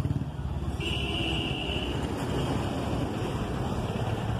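Low, steady rumble of a motor vehicle engine running, with a brief high-pitched whine about a second in.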